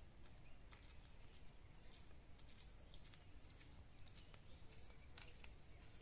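Very quiet outdoor ambience with scattered soft crunches and ticks of footsteps on a gravel path strewn with dry leaves, over a faint low rumble.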